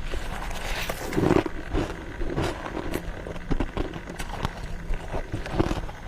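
Close-up chewing and crunching of freezer frost in the mouth, with irregular crisp crackles.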